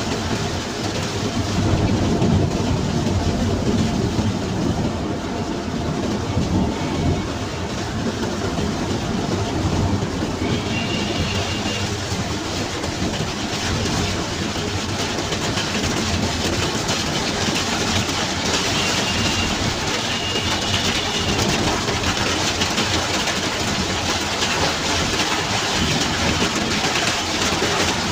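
Steady road noise inside the cab of a Suzuki New Carry pickup driving in heavy rain: engine, tyres on the wet road and rain on the body and windscreen.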